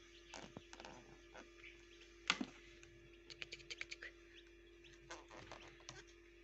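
Northern bobwhite chicks pecking at feed on a paper-lined brooder floor: faint, irregular light tapping clicks, the loudest about two and a half seconds in and a quick run of them between three and four seconds, over a steady low hum.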